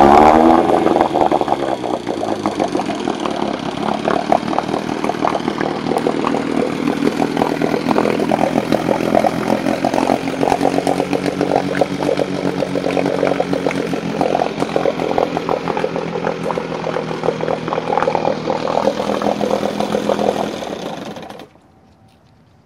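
Johnson 6 hp two-stroke outboard motor running, its revs dropping in the first second or so as the twist-grip throttle is turned back, then running steadily at low speed before it cuts out abruptly near the end.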